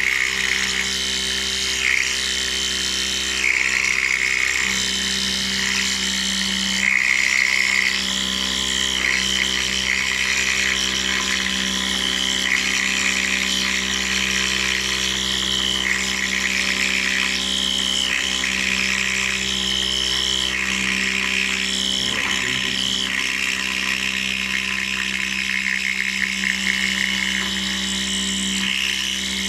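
CNC metal milling machine cutting: a steady spindle and motor hum, with a high-pitched cutting whine that comes and goes every second or two as the cutter works the metal.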